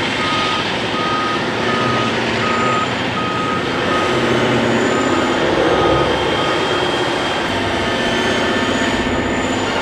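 Heavy mining machine's diesel engine running steadily under a reversing alarm beeping about twice a second; the beeps fade out about halfway through and return near the end.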